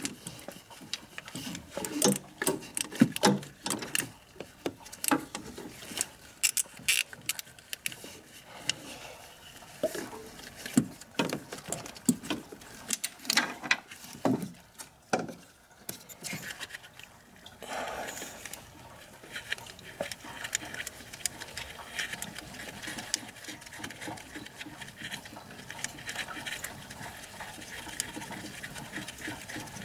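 Ratchet wrench clicking in short runs, with metal tools knocking, as the bolts of a car's engine water pump are turned. Scattered separate clicks and knocks give way to a denser, steadier run of fine ticks a little past the middle.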